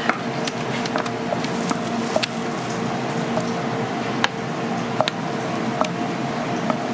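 Thick, sticky purple ube rice mixture sliding out of a stainless steel pot onto banana leaves with a soft squish. Over it runs a steady hum of kitchen equipment, with scattered light clicks.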